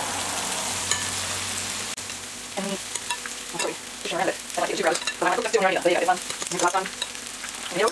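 Beer-battered barramundi and banana fritters sizzling in a shallow pan of very hot oil as spoonfuls of batter are dropped in, with metal spoons scraping batter off each other. From about two and a half seconds in, a run of short, louder crackles and scrapes rises over the steady sizzle.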